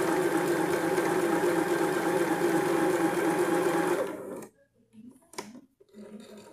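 Singer SH-660 household sewing machine running steadily at speed, stitching a test seam with the upper thread tension set to 4, then stopping about four seconds in. A couple of light clicks follow.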